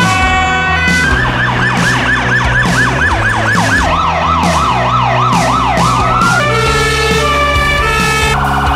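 Emergency-vehicle sirens changing in quick succession. A two-tone hi-lo opens, then a fast yelp with about four sweeps a second runs through the middle, and a stepped two-tone sounds again near the end.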